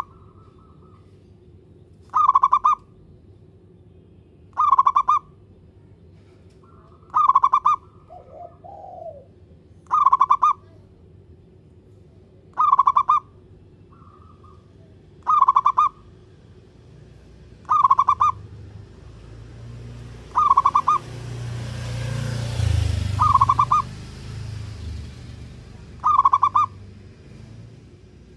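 Zebra dove (perkutut) cooing: a short, rapidly trilled coo repeated at an even pace about every two and a half seconds, eleven times. About two-thirds of the way through, a low rumbling noise swells and fades beneath the calls.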